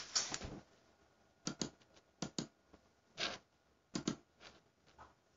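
Quiet, scattered light clicks and taps, several in quick pairs, with a short rustle about three seconds in.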